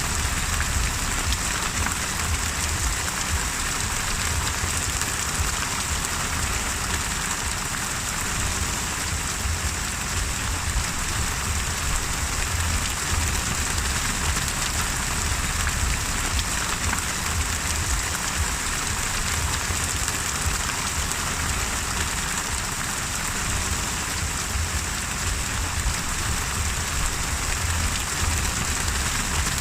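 Steady, heavy rain falling without a break, with a constant deep rumble underneath.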